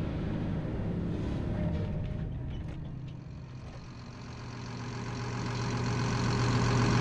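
Feller buncher's diesel engine running. The level dips about four seconds in, then rises again to a steady, even hum.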